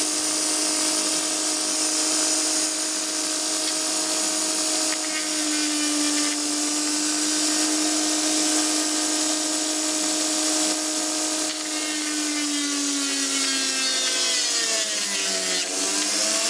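Small brushed universal motor running flat out as it is overdriven to burn it out: a steady whine over a hiss, with the brushes sparking on a shorted commutator. About 12 seconds in the whine sags in pitch as the motor is loaded against a pushed-on stick, bottoms out near the end, then starts climbing again.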